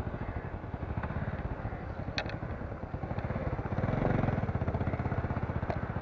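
A motorcycle engine running at low revs with a rapid, even putter, rising briefly about four seconds in.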